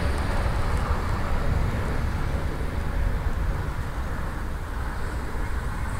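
Steady jet-engine roar of an Air Tahiti Nui Boeing 787-9 climbing away after takeoff, heavy in deep rumble, its higher hiss thinning a little after midway as the jet recedes.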